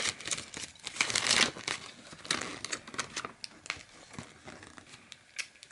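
A folded paper instruction leaflet being unfolded and handled, crinkling and rustling in quick irregular strokes, busiest in the first three seconds and thinning out toward the end.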